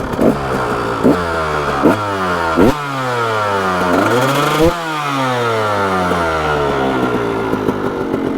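KTM 300 XC two-stroke dirt bike engine running hard and crisp, its pitch rising and falling with the throttle. A few sharp cracks come in the first three seconds, the revs climb to a peak just under five seconds in, then drop away steadily.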